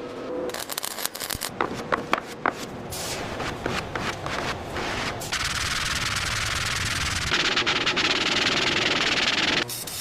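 Workshop restoration tools: a rapid run of clattering knocks and impacts, then a steady compressed-air hiss that gets louder about seven seconds in and cuts off just before the end.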